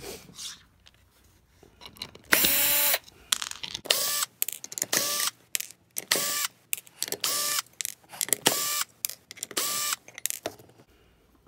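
DeWalt cordless drill/driver run in a string of short bursts, backing wood screws out of a steel fender washer on a wooden vise jaw. Each burst is a whine that rises and levels off, repeating about once a second from about two seconds in.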